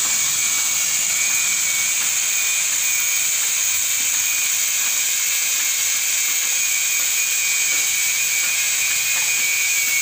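Handheld angle grinder with a cut-off disc cutting through a steel bar, a steady high-pitched whine with a hissing grind as the disc bites the metal.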